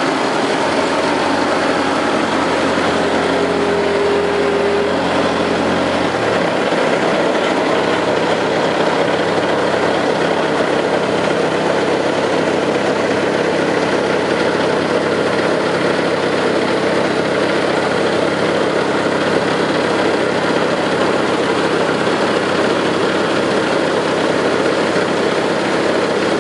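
Mini excavator's engine running steadily close by, with a low hum that changes character about six seconds in.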